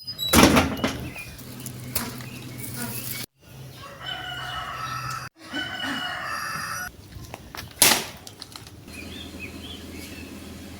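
Chickens: wings flapping and a rooster crowing, heard in short pieces with two abrupt cuts. Sharp loud flaps or knocks come near the start, about two seconds in and near the end.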